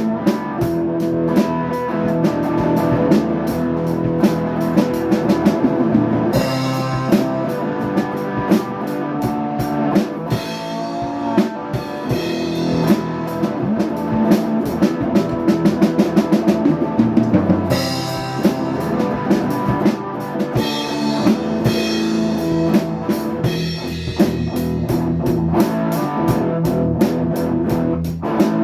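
Instrumental rock music: a drum kit keeping a steady beat under guitar, with a run of quick drum hits about two thirds of the way through.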